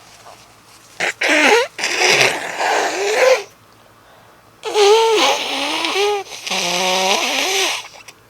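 A woman sneezing twice, loudly and with her voice in it, each sneeze a breathy burst lasting two to three seconds; the first comes about a second in, the second about four and a half seconds in.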